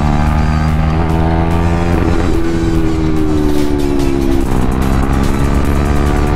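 Motorcycle engine running under way, heard from the rider's own bike. Its note holds steady, shifts abruptly about two seconds in, sinks slowly as the bike eases off, then climbs gently again near the end.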